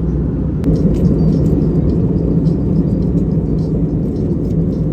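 Airliner cabin noise: a steady low rumble of the engines and airflow, with a single sharp click a little over half a second in.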